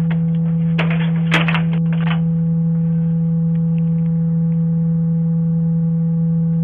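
A loud, steady low electronic tone, one unchanging pitch, that cuts in abruptly and holds without a break. A few crackling clicks sound over it about one to two seconds in.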